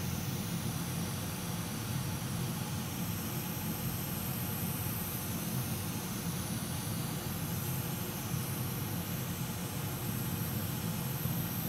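Hot air rework station blowing a steady, even rush of air onto a large Wi-Fi module, heating it to melt the solder so the chip can be lifted off.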